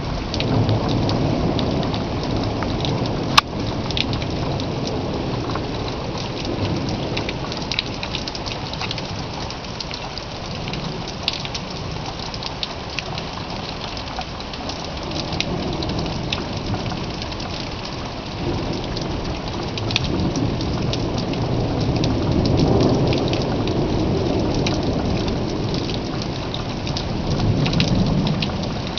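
Steady rain falling, with scattered drops ticking close by, while low thunder rumbles swell and fade several times, strongest about two-thirds of the way through and again near the end. A single sharp click about three seconds in.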